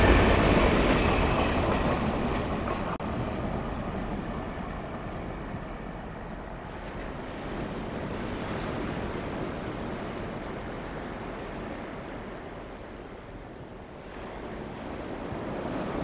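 Short freight train hauled by a TRA diesel-electric locomotive moving away, its engine and wheels on the rails fading steadily over the first several seconds until a low, even noise remains.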